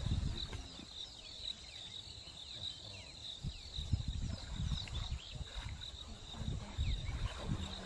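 Steady high-pitched insect chirping with a quick, regular pulse, over irregular low rumbles.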